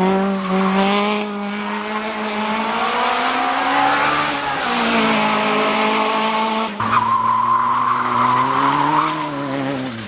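Group N 1300–1600 cc racing hatchback engines running at high revs, the pitch climbing and falling as the drivers change gear and lift for the hairpin. About seven seconds in the sound switches abruptly to another car, whose tyres squeal through the corner.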